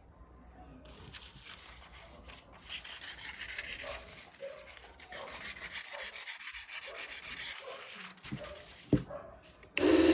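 Repeated rubbing and scraping strokes, uneven in loudness, with a single sharp knock near the end.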